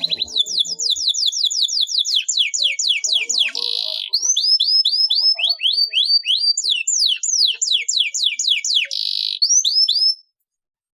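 Domestic canary singing a long rolling song: fast runs of repeated downward-sweeping whistled notes, broken by a couple of short buzzy trills. It stops abruptly about ten seconds in.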